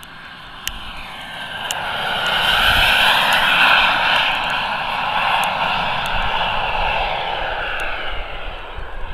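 Boomerang Sprint radio-control model turbine jet on a low pass: its whine and rush swell as it approaches, are loudest about three to four seconds in, then drop slightly in pitch and fade as it climbs away.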